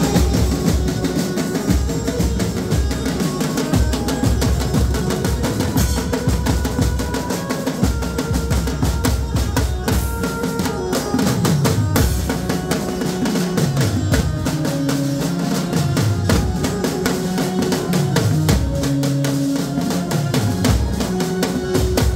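Live street band playing loud, fast rhythmic music: a row of painted barrel drums and a cymbal beating densely, with a keyboard melody over them. About halfway through a low swooping melody line comes in.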